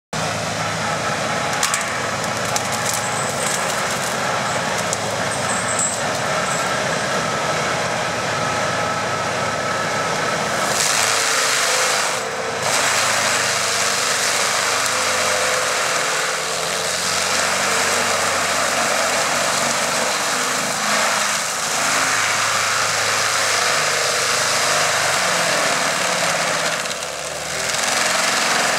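Tractor-mounted forestry mulcher (AHWI M 650 on a Fendt 930 Vario) running: a steady, loud mix of tractor engine and spinning rotor, with wood cracking and splintering. From about a third of the way in, the rotor grinds into a tree stump, shredding it into chips, and the noise dips briefly twice.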